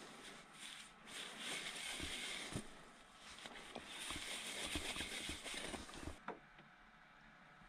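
Paper towel rubbing round the inside of a wooden bowl as it is wiped out, in two spells of soft scratchy scrubbing, with a few light knocks of the bowl being handled.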